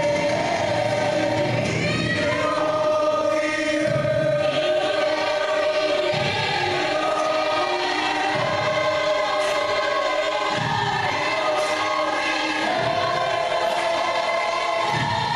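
A choir singing a gospel song, mostly long held notes in several voices, with low bass pulses every couple of seconds.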